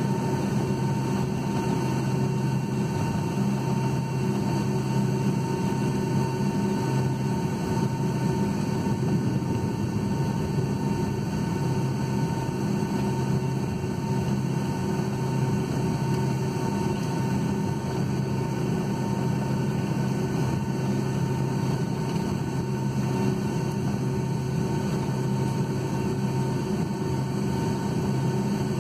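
Steady cabin drone of a Boeing 757-200 taxiing, heard from a seat over the wing: the engines at low taxi power give an even low hum with a faint higher steady tone above it.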